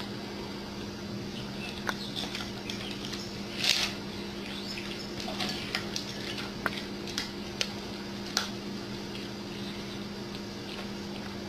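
Scattered light taps and clicks, one louder cluster of them a little under four seconds in, over a steady low hum.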